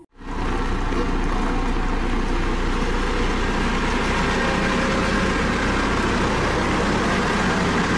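Dynapac CC522 double-drum asphalt roller's diesel engine running steadily, a low even hum.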